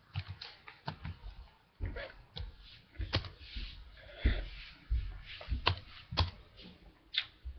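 Ice lolly being bitten and chewed: irregular crunches and sharp clicks with low thumps and short breathy hisses.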